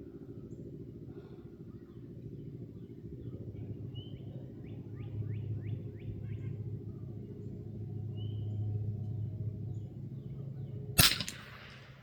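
A single .22 LR rifle shot from a Hatsan Escort bolt-action rifle, one sharp crack near the end. It comes over a steady low hum, with birds chirping a few times in the middle.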